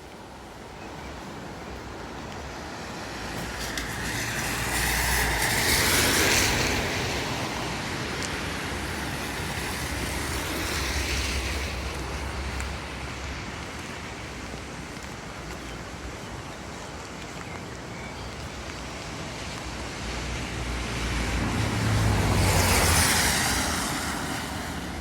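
Road traffic: vehicles passing by, each swelling up and fading away, the loudest about six seconds in and another near the end, over a steady background of road noise.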